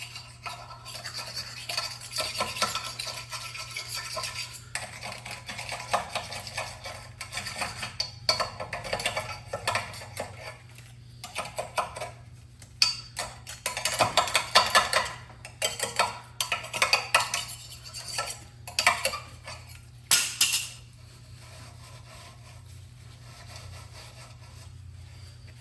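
Hand scrubbing and scraping of a metal sprayer part, in irregular strokes with light metallic clinks, stopping about 21 seconds in.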